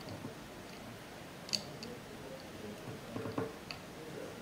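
Faint clicks and handling noises of a small power-cable connector being fitted to a board's pin header, with one sharper click about a second and a half in and a few softer ones near the end.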